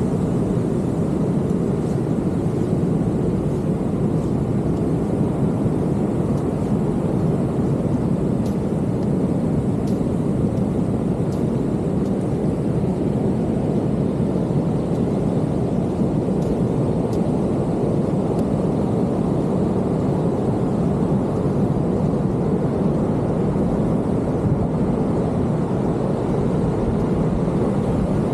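Steady roar of rushing water from the beach surf, unbroken and even in level, with a few faint ticks about a third of the way in.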